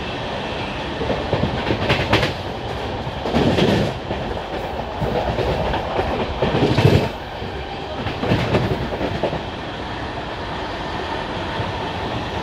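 Express passenger train running along the line, its wheels clattering over the rails, with several short, louder stretches of clatter through the middle.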